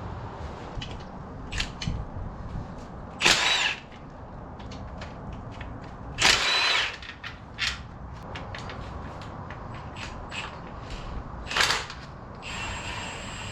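Handheld power tool running in three short bursts, about three, six and eleven and a half seconds in, running out bolts. Light metallic clicks and knocks come between the bursts.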